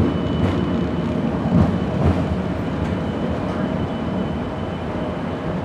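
Restored streetcar running along its track, heard from inside the car: a steady rumble of wheels on rail, with a couple of thumps about one and a half and two seconds in.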